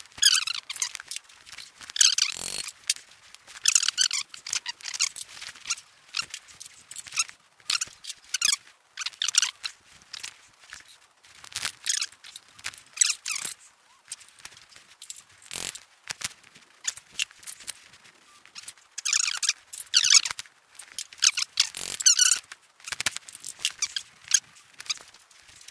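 Metal parts scraping and squeaking against each other in irregular bursts, with a few sharp clicks and knocks, as valve springs and guides are levered into a Ford flathead V8 block by hand with a tyre lever.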